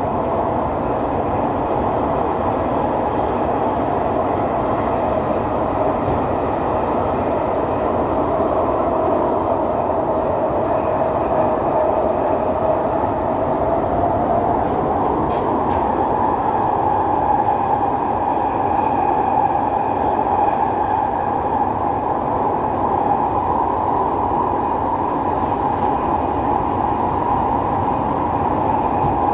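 London Underground 2009 Tube Stock train running through a tunnel, heard from inside the carriage: a loud, steady rumble and rush with a tone that dips slightly and then climbs higher about halfway through.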